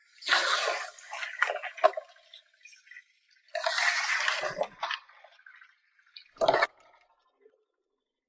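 Water splashing and sloshing in four short bursts, the last a brief splash about six and a half seconds in.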